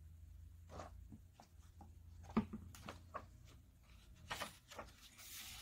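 Faint rustles and soft taps of rubber-gloved hands handling a hardcover picture book, with a paper page being turned near the end.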